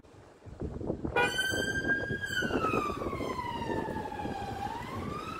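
Police car siren switching on about a second in: it holds a high note, then slides slowly down and back up in a wail, over the rumble of the car pulling away.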